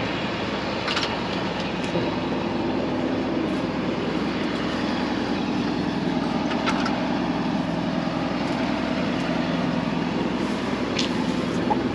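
John Deere 4755 tractor's six-cylinder diesel engine idling steadily, with a few light clicks from the sprayer.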